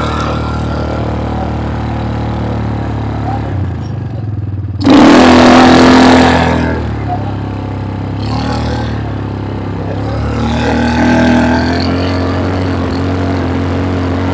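Small bike engine running steadily, with a louder burst of revving about five seconds in that lasts a second or so.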